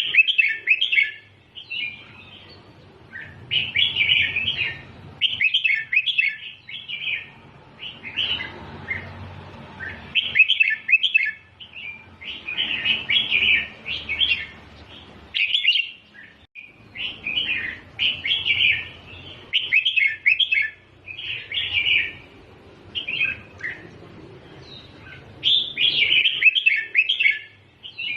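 Red-whiskered bulbul singing: short, quick song phrases of about a second or two each, repeated every couple of seconds with brief pauses between.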